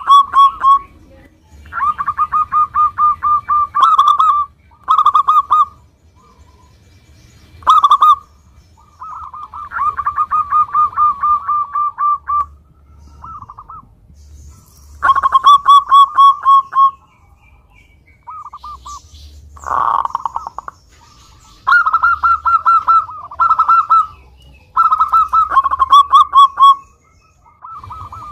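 Zebra dove (local perkutut) singing: repeated bouts of rapid staccato cooing notes, each bout lasting one to two seconds, with short pauses between.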